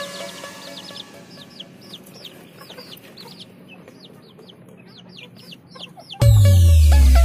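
Young chicks peeping, a quick series of short high cheeps that fall in pitch. A little after six seconds in, loud electronic dance music with heavy bass cuts in and drowns them out.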